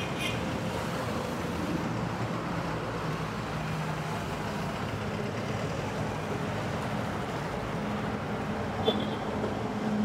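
Steady roadside traffic noise: a continuous rumble with a low engine hum underneath, and a short click near the end.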